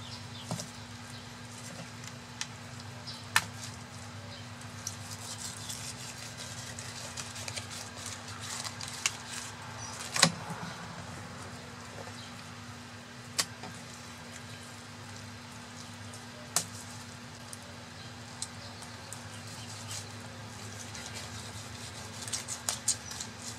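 Fillet knife working through fish on a wooden table: scattered sharp taps and clicks of the blade and fish against the wood, the loudest about ten seconds in and a quick few near the end, over a steady low hum.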